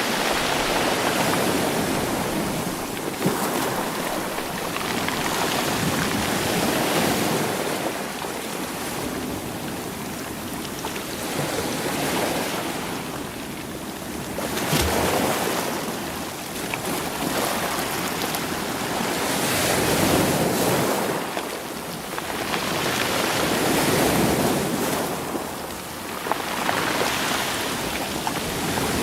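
Sea waves washing in over a rocky, stony shore, surging and ebbing every few seconds, with occasional sharp knocks of stones rolling in the surf.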